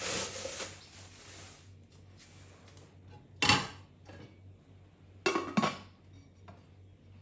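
Bubble-wrap plastic rustling as a saucepan is unwrapped, then cookware knocking: one loud sharp clank about three and a half seconds in and two quick clinks a little after five seconds, from a metal saucepan and its glass lid.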